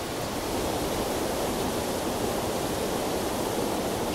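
Fast-flowing chalk-stream river water churning into white water, a steady even rush.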